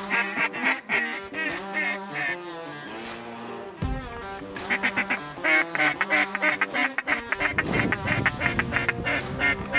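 Mallard-style quacking in rapid strings, in two runs with a pause of about two seconds between them, over background music with steady held notes.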